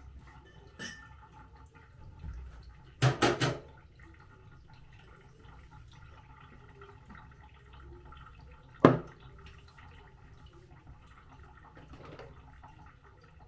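Kitchen utensils and cookware being handled: a quick run of three knocks about three seconds in, a single sharp knock near nine seconds, and faint clicks between.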